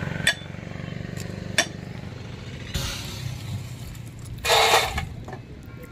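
Handfuls of dry fried banana chips dropped into a steel weighing pan: a short crisp rattling rustle about four and a half seconds in, after a few light clinks. A motor hums low and steady underneath.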